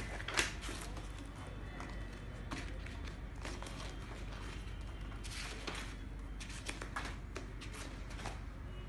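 Heavy wallpaper sample pages being turned by hand in a large sample book, each page swishing over and flopping down, with a sharp slap about half a second in and several quicker turns later on. A steady low hum runs underneath.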